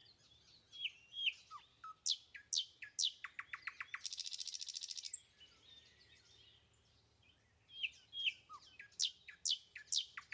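Birds singing faintly: a run of short, downward-sweeping chirps leads into a rapid trill, and after a pause of about two seconds the chirps start again.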